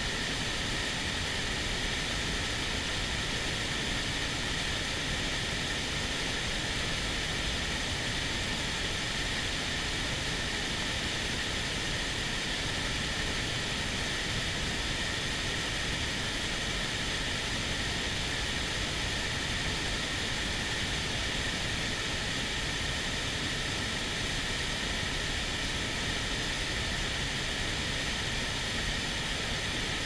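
Steady rush of a swollen, fast-flowing mountain river in torrent.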